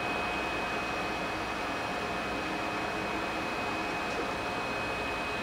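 Tschudin HTG-310 universal cylindrical grinder running steadily, an even hum and hiss with a thin high whine, while the wheelhead holds at the end of its automatic plunge feed (the timed sparkout dwell) before retracting on its own.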